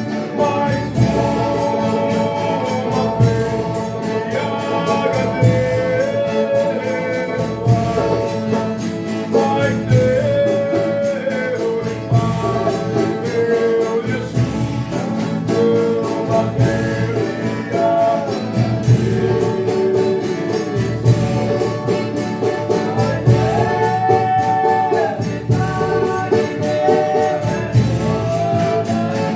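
Folia de Reis group singing a devotional song together, with tambourine jingles over a steady low drumbeat.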